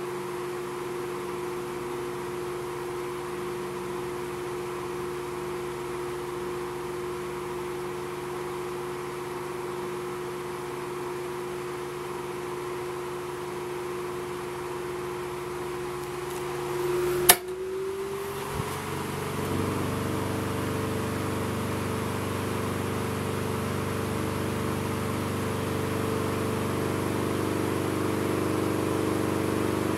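1984 Galaxy 16-inch table fan, model 2151, running with a steady motor hum and a single steady tone. About 17 seconds in, a switch clicks sharply. After a second or two the fan runs louder with more air noise, a change to a higher speed.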